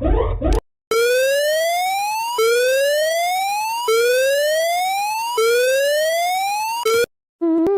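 Electronic whoop alarm tone: a rising sweep that climbs steadily in pitch over about a second and a half, repeated four times, then cut off just as a fifth begins. At the very start a different alarm tone pulsing about four times a second stops, and near the end a warbling alarm tone begins.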